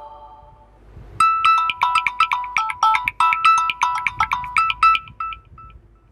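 Samsung Galaxy M31 ringtone: a quick melody of short, bright notes that starts about a second in and dies away near the end. The last notes of the previous ringtone fade out at the start.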